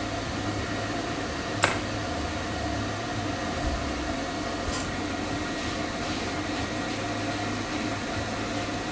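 Pet-grooming stand dryer running steadily, a constant whir of its fan, with a single sharp click about a second and a half in.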